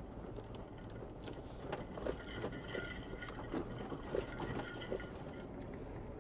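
Jeep Wrangler Rubicon JK crawling slowly over a rough dirt track, heard from inside the cab: a steady low engine and road rumble with scattered knocks and rattles from the bumps.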